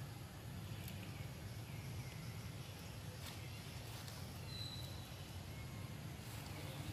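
Outdoor ambience: a steady low rumble with a few faint bird chirps and one short high note near the middle, and a single sharp click about three seconds in.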